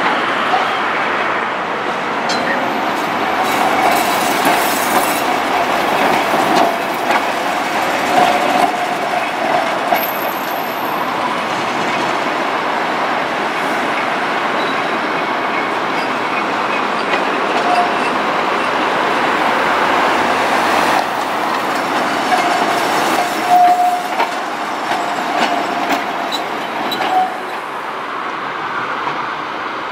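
Tram running on street track, its wheels squealing on the curves in short stretches at a steady pitch, over the rumble and clatter of the wheels on the rails.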